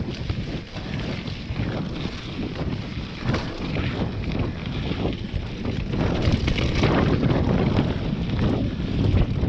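Wind buffeting the microphone of a mountain bike descending a loose dirt singletrack, over the rumble of the tyres on the dirt, with many short knocks and rattles from the bike over the rough trail.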